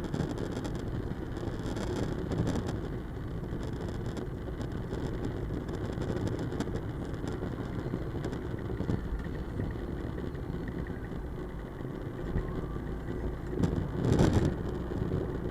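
Vehicle driving along a road: steady engine and road noise, with a brief louder whoosh near the end.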